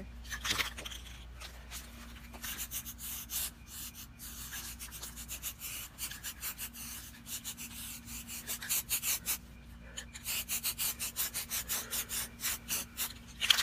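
Aerosol spray-paint can hissing in many short bursts as paint goes onto the rifle, the bursts coming faster and closer together in the second half.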